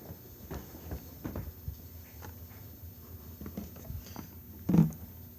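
Scattered light knocks and handling noises, with one louder, low thump near the end.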